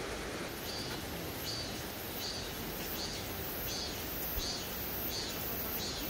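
A high-pitched animal call repeats in an even rhythm, about eight short pulses beginning half a second in, over a steady hiss.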